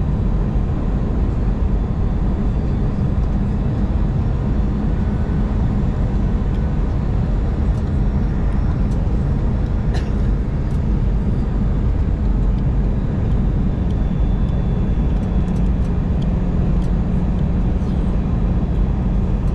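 Steady low rumble and hum of an airliner's engines and rushing air, heard from inside the passenger cabin in flight.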